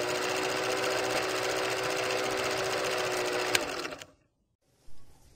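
Old film projector sound effect: a fast, even mechanical clatter with a steady hum under it, stopping suddenly about four seconds in.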